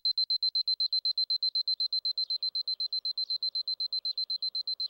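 Alarm clock beeping electronically: a single high-pitched tone repeating rapidly, about ten beeps a second.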